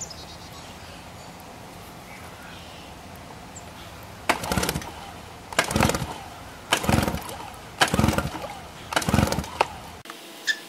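1991 Evinrude 3 hp twin two-stroke outboard being pull-started cold after ten years in storage: five yanks on the recoil starter cord, about a second apart, each spinning the engine over briefly with a rapid chuffing, without it catching.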